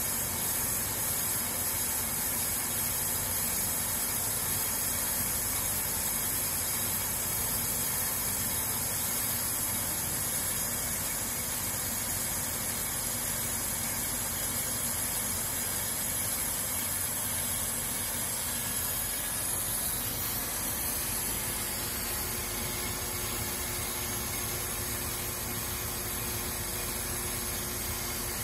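Bench brake lathe turning a brake rotor, its twin cutting bits shaving the rotor faces with a steady, high hiss over the lathe's running motor; resurfacing the rotor to true up warping. The sound eases off slightly about two-thirds of the way in.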